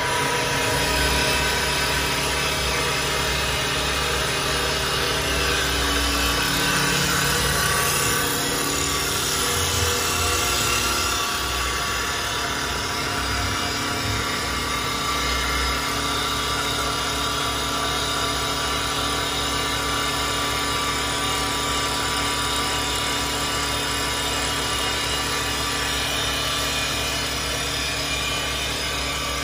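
Double-cutter CNC wood lathe running, its motors whining steadily while the cutters turn a wooden blank. The low hum shifts during the first half, then holds steady.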